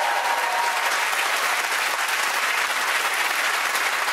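Studio audience applauding steadily, a dense even clatter of many hands.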